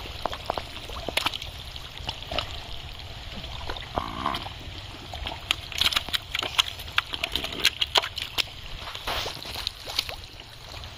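Wet mud and muddy water squelching, sloshing and splatting as hands dig through thick pond mud and fish flap in a basin of muddy water, with a run of sharp wet slaps in the second half, over a steady low rumble.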